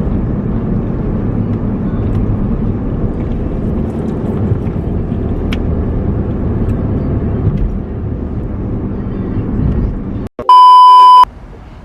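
Steady low rumble of car road and engine noise heard from inside a moving car, cutting off abruptly about ten seconds in. It is followed by a very loud, steady, high-pitched beep lasting under a second.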